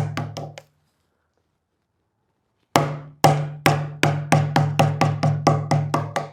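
Mallet repeatedly striking a chisel to chop out waste wood short of a layout line: a few blows, a pause of about two seconds, then a run of strikes that quickens to about five a second. Each blow is a sharp knock with a short ring.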